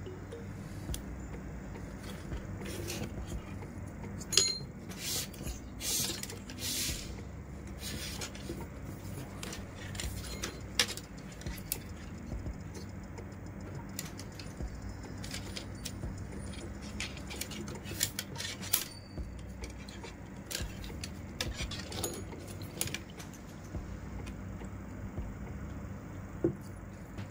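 PE plastic rattan strands being woven by hand: irregular rustling, clicks and sharp taps of the stiff plastic strands against each other and the basket frame, over a steady low hum.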